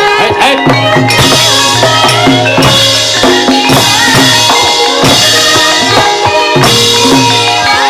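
Javanese gamelan music for a wayang kulit fight scene: loud drumming with low strokes that drop in pitch, metallic crashes about every second and a half, and steady ringing metallophone notes underneath.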